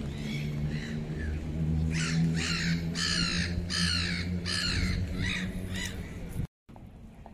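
A bird, most like a crow, cawing in quick runs of short harsh calls, two or three a second, over a low steady hum. The sound cuts off suddenly about six and a half seconds in, leaving a quieter background with a few faint clicks.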